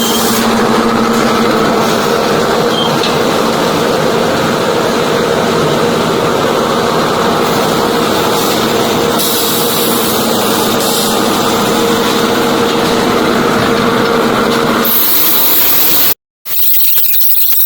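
Heavy sawmill machinery running steadily, a loud mechanical drone with a constant hum. Near the end it changes abruptly, drops out to silence for a moment, then a different, noisier machine sound starts.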